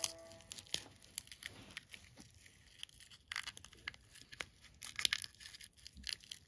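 Faint, irregular crackling and crinkling: scattered small sharp clicks over a light hiss. The tail of plucked-string music fades out at the very start.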